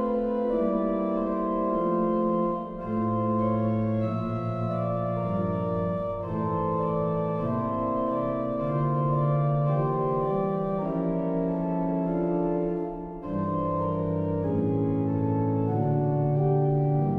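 Church organ playing slow, sustained chords, with two short breaks between phrases, about three seconds in and again about thirteen seconds in.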